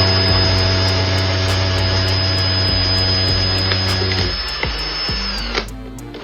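An electric power tool running at a steady pitch, with a steady hum and a high whine, cutting off about five and a half seconds in.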